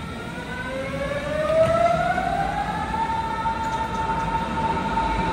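Berlin S-Bahn electric train pulling away: its traction drive whines in several tones at once, rising in pitch as the train accelerates for about three seconds, then holding steady, over the rumble of the train.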